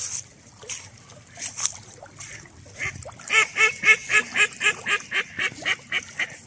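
Mallard hen quacking: a rapid series of about a dozen quacks, about four a second, starting about three seconds in, loudest at first and fading toward the end.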